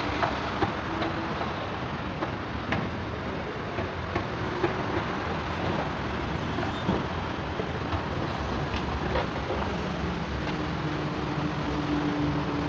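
Steady mechanical rumble of a transit station with an escalator running, broken by a few light clicks. A steady low hum comes in near the end.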